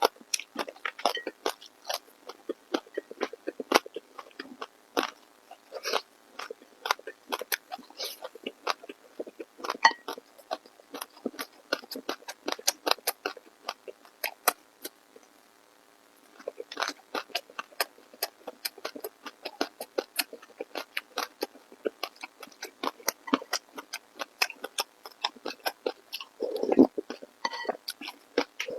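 Close-miked eating sounds: rapid wet smacking and chewing clicks, pausing for about a second and a half in the middle, with one short low mouth sound near the end.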